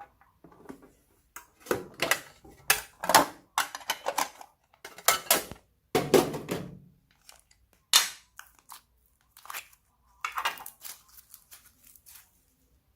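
Slime being squished and kneaded by hand, heard as irregular bursts of squishing and crackling with short pauses between. The bursts are densest and loudest from about two to seven seconds in, with a sharp one at eight seconds and a softer cluster near the end.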